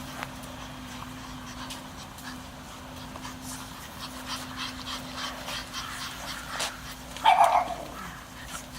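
Pug puppies snuffling and squeaking softly, with one short, louder squeal about seven seconds in.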